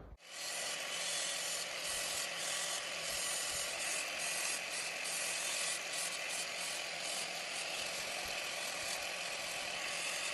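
Welding a small metal part, a steady crackling hiss with no breaks.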